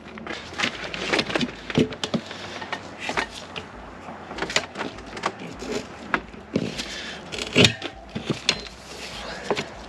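Irregular clicks and knocks of hand tools and metal parts being handled while working a tire off a motorcycle rim.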